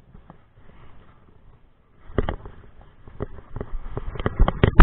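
Mountain bike rattling and knocking as it rolls over loose rocks, starting about two seconds in, with the hardest jolts near the end.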